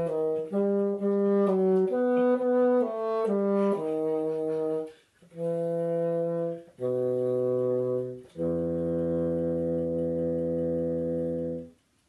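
Solo bassoon playing the closing bars of the piece: a run of short notes, then three long held notes, each lower than the last. The final low note is held for about three seconds and stops shortly before the end.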